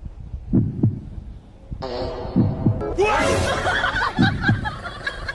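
Low heartbeat-like double thumps, three pairs about two seconds apart. From about three seconds in, a busy mix of noise and wavering pitched sounds joins them.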